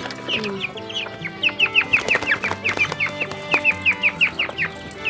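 Quail chirping while held in the hand: a fast run of short, high chirps, each falling in pitch, several a second, over background music.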